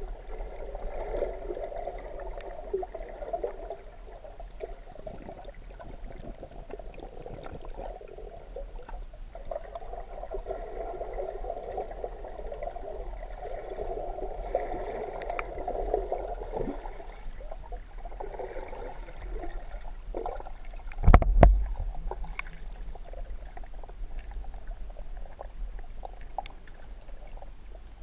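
Underwater noise picked up by a submerged camera: a wavering, gurgling water sound that swells and fades, over a steady low hum, with one loud knock a little past twenty seconds in.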